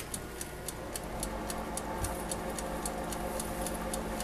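Black & Decker toaster oven's wind-up timer ticking at about four ticks a second. About a second in, a steady electrical buzz starts inside the controls: the buzz the owner traced to a loose, arcing flag terminal on the main power wire.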